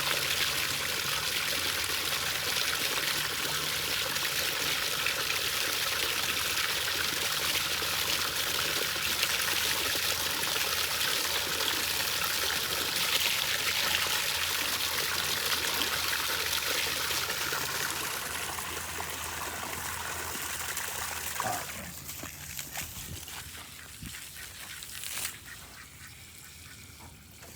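Water running from a garden hose with a steady splashing hiss, which dies away about two-thirds of the way through; ducks quacking.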